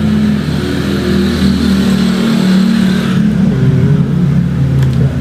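An engine running, its pitch shifting up and down, with a hiss that drops away about three seconds in.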